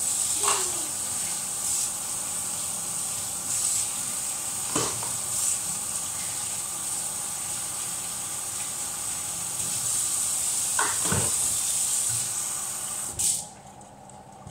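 Kitchen tap running steadily into a sink, with a few clinks of dishes being handled; the water is shut off suddenly near the end.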